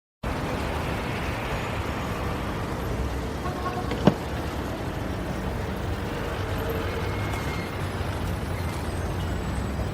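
Steady rumble of road vehicles or traffic that starts abruptly after silence, with a single sharp click about four seconds in.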